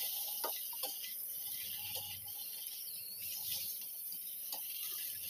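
Carrot strips and wood ear mushrooms sizzling faintly as they are stir-fried in a wok, with a metal spatula scraping and clicking against the pan now and then.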